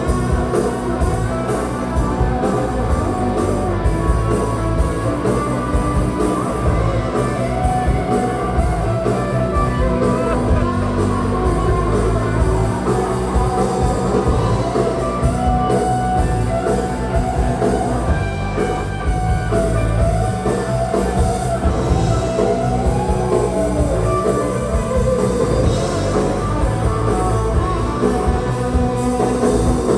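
Live rock band, with electric guitar, bass and drums, playing loudly with a sung vocal, recorded from among the audience in a hall.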